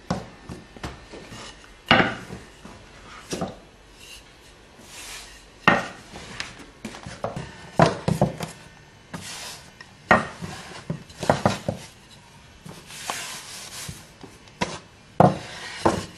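Rolling pin rolling small pieces of panzerotti dough flat on a floured surface: irregular knocks as the pin is set down and moved, with soft rubbing sounds in between.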